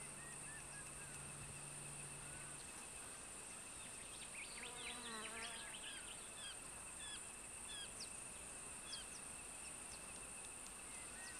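Faint savanna ambience: insects shrilling steadily at two high pitches, with scattered bird chirps and a brief burst of chattering calls about five seconds in.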